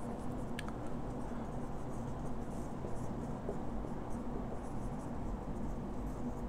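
Marker pen writing on a whiteboard: quiet squeaks and scratches of the felt tip as words are written, over a steady low room hum.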